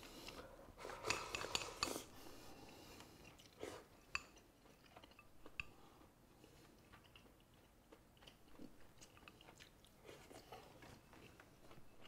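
Quiet eating at a table: chopsticks clicking against a bowl, with faint chewing. A cluster of sharper clicks comes about a second in, then single clicks a few seconds later.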